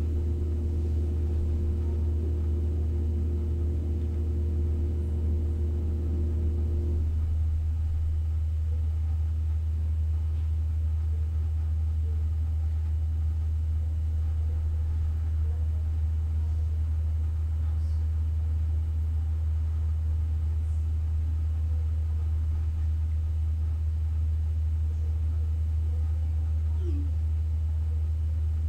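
Steady low rumble or hum that does not change. Faint steady tones over it cut off suddenly about seven seconds in.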